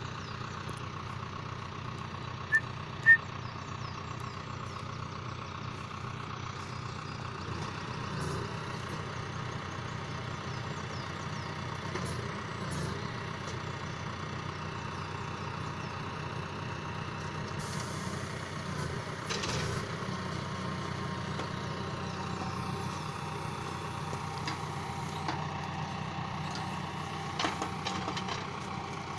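John Deere 6115M tractor's diesel engine running steadily while it drives the timber trailer's hydraulic loader crane, with a few brief knocks as logs are handled. Two short high beeps, about two and a half and three seconds in, are the loudest sounds.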